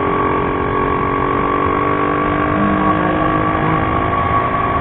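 Motorcycle riding at a steady speed, heard from on the bike: a steady engine and drivetrain hum holding one pitch over road and wind noise.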